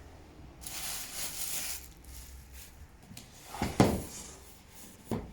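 Handling noise as sewing-machine accessories are unpacked: a rustle about a second in, then a sharp knock a little before four seconds and a lighter click near the end.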